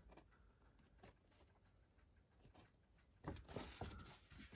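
Near silence, then from about three seconds in a run of faint taps and rustles of printed card being handled.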